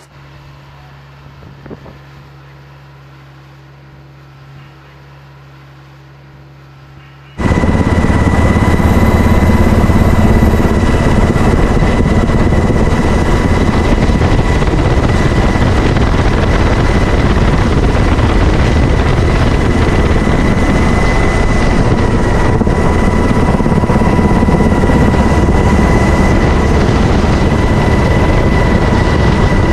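A low, steady hum from an aircraft tow tractor on a carrier flight deck, quiet. About seven seconds in it cuts to loud, steady helicopter noise with a constant high whine, heard from aboard the helicopter in flight.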